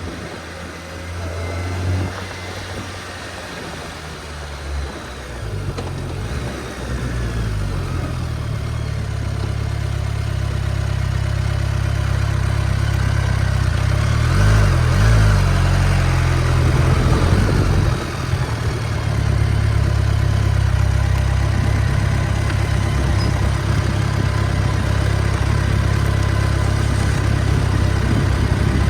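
BMW K1300S motorcycle's inline-four engine running at low, steady revs, with the pitch rising and falling twice in quick throttle blips about halfway through.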